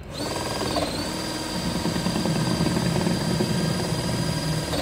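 Intercable battery-powered hydraulic pump on a Milwaukee 18V battery, running steadily with a high whine while it drives a 5-ton hydraulic cylinder on a three-jaw puller to pull out a bearing. Its low hum grows heavier about a second and a half in as the load comes on.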